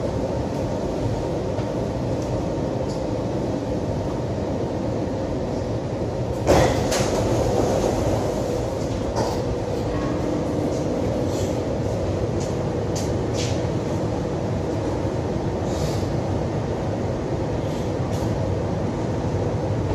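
Steady rumble and hum inside an Alstom Metropolis C751C metro car as it draws into a station and stands there. A sudden loud burst of noise comes about six and a half seconds in and fades over a couple of seconds, followed by scattered faint clicks.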